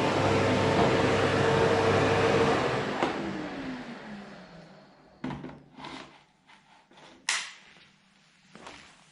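Vacuum cleaner running, then switched off with a click about three seconds in, its motor winding down with a falling hum. Several separate knocks and clatters follow, the loudest a little past the middle.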